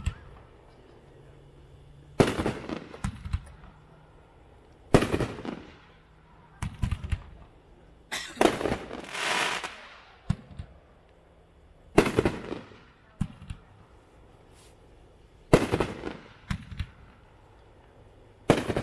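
'Annihilation' 9-shot consumer firework cake firing its shells one at a time, a loud bang about every three seconds, six in all. Most bangs are followed within a second by smaller pops. The third shot, about eight seconds in, trails a longer hiss.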